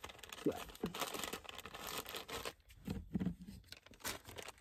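Crinkling and rustling of a plastic wipes packet and paper wipes as a wipe is pulled out and rubbed over the hands, with a couple of soft knocks about three seconds in.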